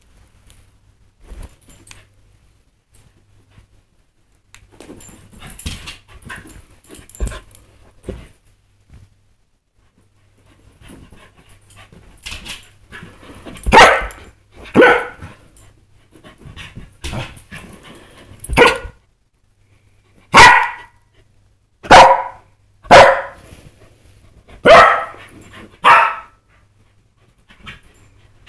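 Pembroke Welsh corgi barking at a green laser spot. Faint and sparse at first, then a run of loud single barks about a second or two apart through the second half.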